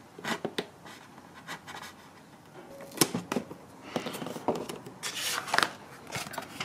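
Hobby knife cutting and scraping into a soft foam model-plane fuselage, a series of short scratchy cuts with a sharp knock about three seconds in, then foam rubbing and squeaking under the hands as the fuselage is handled.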